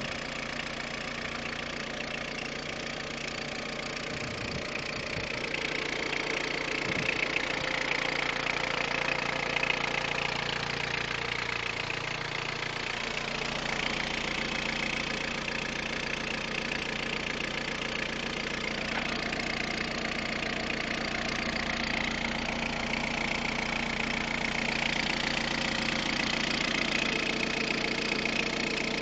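Peugeot 106 1.5-litre diesel engine running steadily at idle, a little louder after about six seconds.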